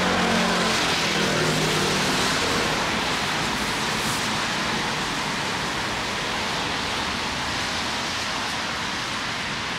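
Steady hiss of a rain-wet city street, with traffic on the wet road. A vehicle's low engine hum runs under it for the first two seconds or so.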